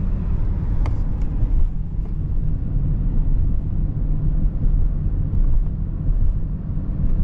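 Steady low rumble of road and engine noise inside a moving car's cabin, with a faint click about a second in.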